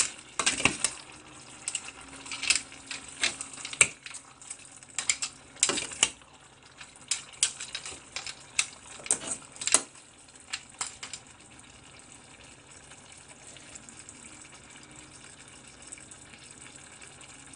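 A metal ladle stirring wet soup with periwinkles in a stainless steel pot, clinking and scraping against the pot in irregular strokes for about ten seconds. After that it settles to a faint steady hiss.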